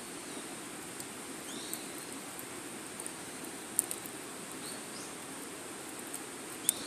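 Wood fire crackling in a small fire pit: a steady low rush of flame with scattered sharp pops, the loudest about four seconds in and near the end. A few short chirps sound in the background.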